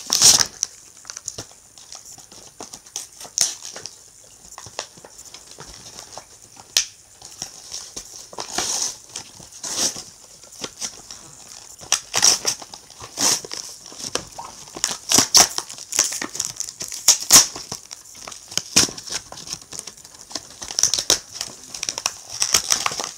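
A cardboard toy box and its plastic packaging being ripped open and handled: a long run of irregular crinkles and tearing rips.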